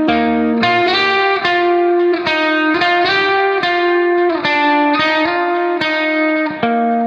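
Background music: a guitar picking out a slow melody, one note after another.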